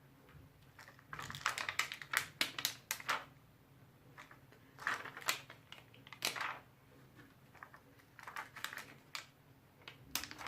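Light clicking and crinkling from peeling and pressing small self-adhesive decorations off their backing sheet, in four or five short bursts.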